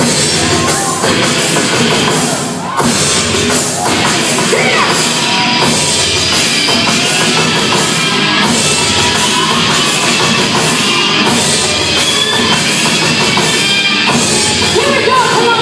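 Loud rock music with a drum kit and singing, dense and distorted, with a brief drop in level about two and a half seconds in.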